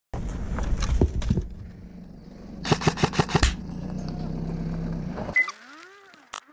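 Airsoft gun firing: a few single shots, then a rapid burst of about six shots about three seconds in, over a rumbling, rustling background. Near the end, the sound drops to a few rising-and-falling chirping whistles.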